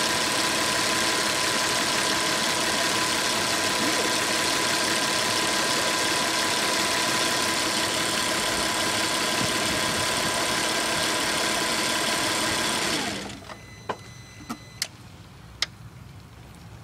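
Audi A6 2.7T twin-turbo V6 running steadily in the engine bay, with a faint steady hum, until it cuts off suddenly about thirteen seconds in. A few sharp clicks follow.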